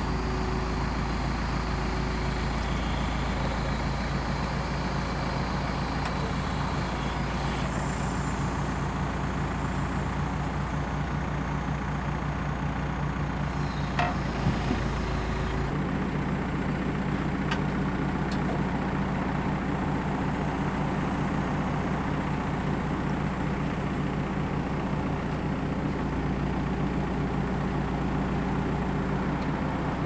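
Backhoe's diesel engine running steadily as its hydraulic arm lifts a log. Its note shifts a little past halfway, and there is a brief knock just before.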